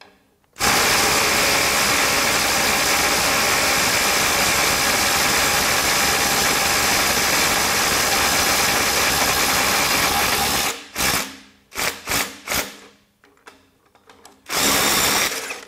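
Ryobi One+ HP brushless impact driver hammering without a break for about ten seconds to loosen a 24 mm nut torqued to 200 foot-pounds, then four short bursts as the loosened nut is run off. The nut is slow to break free, which the tester thinks is from galled threads.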